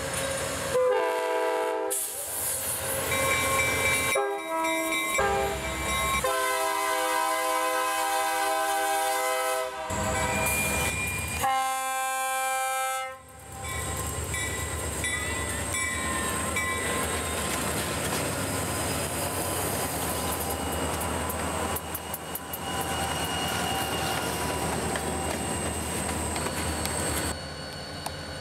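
Diesel locomotive air horn sounding four chords, the third the longest, followed by a steady rumble of a train running past on the rails.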